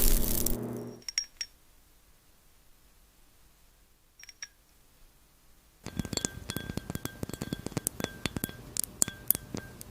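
Crisp glassy clinks and taps: a sharp hit fading out over about a second, a few high clinks, a near-silent pause, then from about six seconds in a rapid run of light ticks with a faint ringing tone under them.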